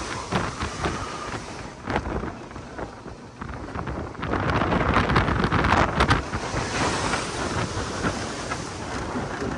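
Wind rushing over the phone's microphone on a moving roller coaster, with the train rumbling and rattling along the track; the rush is loudest about four to six seconds in.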